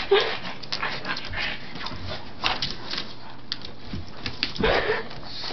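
Pug whimpering and panting while its claws scratch at the carpeted cat tree, as it tries to reach a chew on the shelf above.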